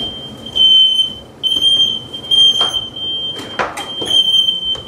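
Several interconnected hard-wired smoke alarms sounding at once, their shrill beeping tones overlapping into an almost unbroken alarm. One faulty detector is setting off the whole linked chain. Two short knocks come about two-thirds of the way through.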